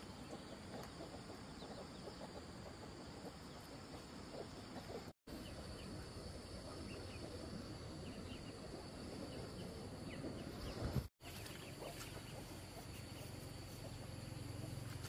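Poultry clucking and peeping faintly over a steady outdoor background, with short high chirps scattered through. The sound drops out briefly twice, about a third and two-thirds of the way through.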